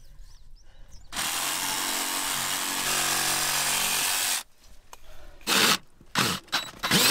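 A handheld power tool running in a burst of about three seconds, starting a second in after a short pause and cutting off suddenly a little past the middle, followed by a few short separate noises.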